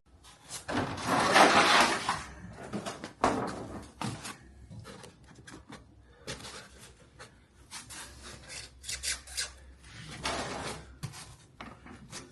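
Scraping, rubbing and knocking as an old RV rooftop air conditioner is taken apart by hand. The loudest scrape comes about a second in and lasts about a second, followed by scattered shorter scrapes and clicks.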